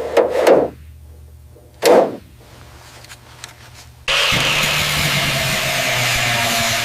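Two short loud bursts of noise, then a motor starts abruptly about four seconds in and runs steadily and loudly.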